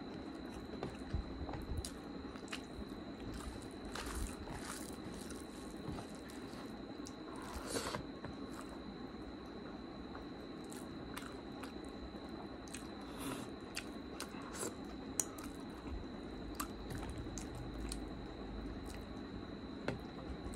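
Close-up eating sounds of rice and curry eaten by hand: wet chewing and mouth smacks with irregular small clicks, and fingers squishing the rice together on the plate.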